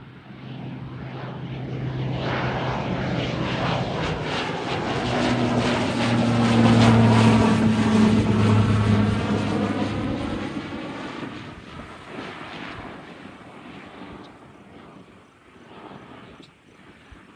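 Pilatus PC-12/45 single-engine turboprop (Pratt & Whitney PT6A-67B) at takeoff power, with a low propeller drone and a turbine hiss. It grows louder as the aircraft passes, is loudest about seven seconds in, then fades away.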